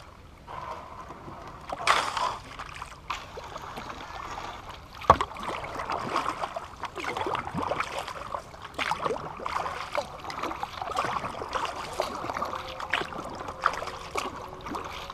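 Kayak paddle strokes in calm shallow water: irregular dips, splashes and drips, with one sharp knock about five seconds in.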